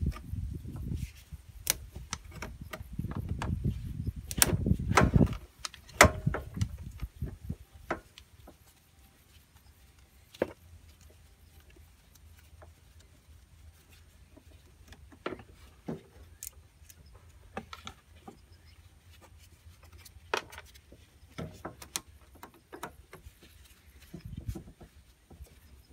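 A screwdriver and gloved hands working on a scooter carburetor: scattered sharp metal clicks and light knocks. Low rustling handling noise fills the first six seconds, then only occasional clicks follow.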